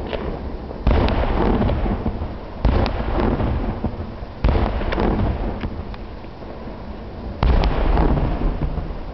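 Aerial fireworks shells bursting: four loud booms a couple of seconds apart, each trailing off in a rolling echo with scattered sharp crackles.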